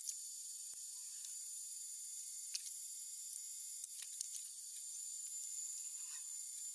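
High-speed spindle of a DIY CNC machine running while drilling a copper-clad circuit board: a steady high hiss with a thin whine, broken by several sharp clicks.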